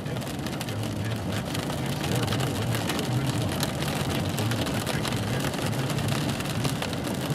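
Car running, with a steady low engine and road hum and many sharp ticks striking the car's roof and glass.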